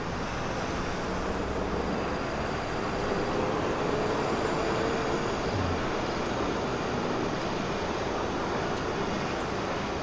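Steady outdoor background noise, even and unbroken, with a faint hum for a couple of seconds near the middle.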